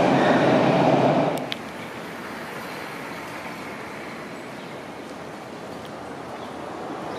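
Toronto TTC subway train running loudly with a steady whine, cutting off abruptly about a second in with a short click. A quieter steady noise follows and grows slightly louder near the end.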